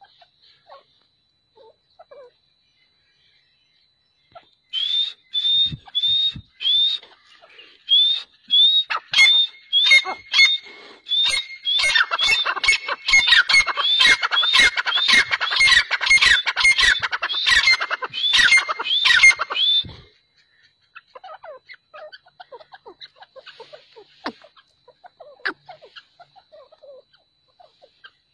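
A pair of grey francolins calling: loud, high, repeated hooked notes start about five seconds in and become a dense overlapping duet from about twelve seconds, then stop abruptly near twenty seconds. Only faint, scattered chirps follow.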